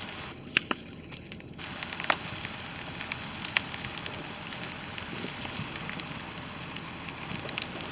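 Fire burning through the wreckage of a New Holland T175 tractor and snowmobile-trail groomer: a steady hiss with scattered sharp pops and crackles.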